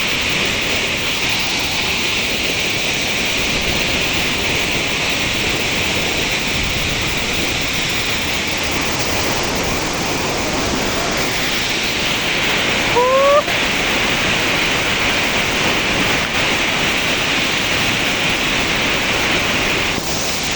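Waterfall: a steady, loud rush of falling water. About two-thirds of the way through, a brief rising whistle-like call cuts through it.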